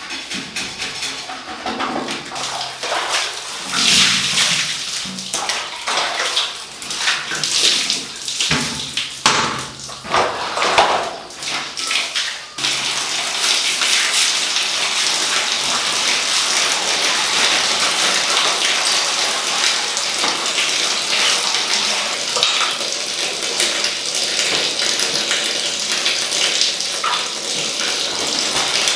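Water splashing irregularly for the first dozen seconds; then, a little under halfway in, a tap starts running in a steady gush into a tub or basin.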